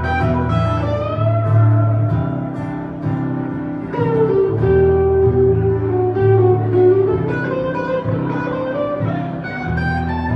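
Live band playing an instrumental passage: acoustic and electric guitars over bass and a steady low end, with a sustained, bending lead melody line above.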